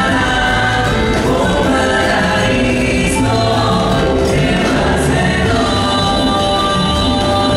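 Live band music with several voices singing together, loud and steady, from a stage show.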